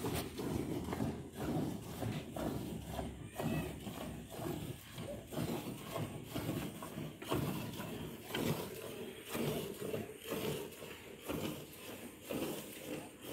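Hand-milking a cow: squirts of milk from the teats hit the milk already in a plastic bucket, one after another in a steady rhythm.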